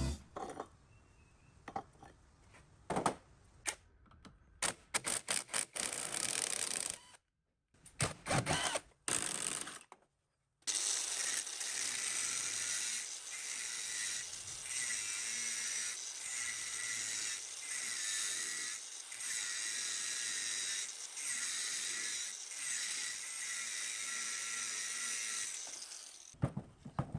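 Tools clicking and knocking on metal for the first ten seconds or so. Then a power tool starts and runs steadily, with a faint regular pulse, until just before the end.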